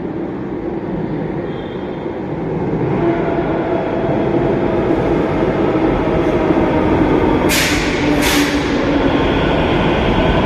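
Navi Mumbai Metro train pulling in alongside the platform, its rumble and motor hum growing louder from about three seconds in. Near the end there are two short, sharp hisses less than a second apart.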